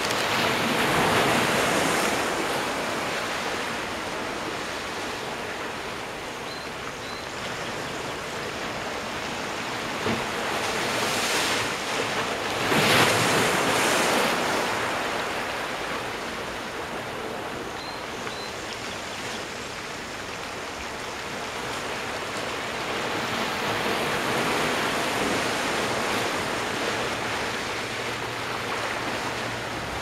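Ocean surf breaking against shoreline rocks: a continuous wash of water that swells and falls with each wave, the loudest crash a little before the middle.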